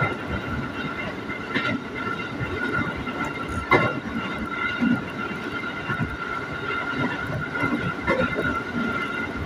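KRL commuter electric train running at speed, heard from inside the car: a steady rumble of wheels on rail with a steady high whine. A few short clicks are heard, the sharpest about four seconds in.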